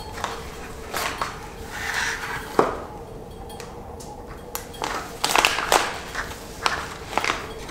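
Foil freeze-dried meal pouch being torn open and opened by hand: a run of sharp crackles and crinkling rustles, thickest about five to six seconds in, over a steady faint hum.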